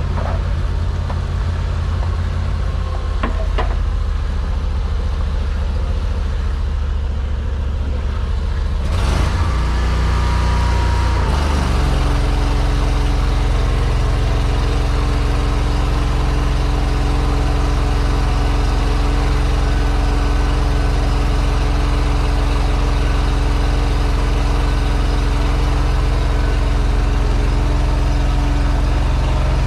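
Engine of a high-pressure drain jetter running steadily. About nine seconds in it changes pitch, and from about twelve seconds it holds a steady, higher note with more hiss as it runs on.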